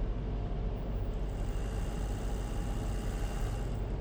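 Hyundai i10 engine idling, a steady low hum.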